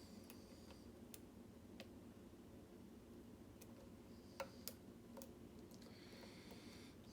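Faint, scattered clicks of a lock pick working the pins of a mortise lock cylinder, about eight in all, the loudest pair about four and a half seconds in, over a faint steady hum.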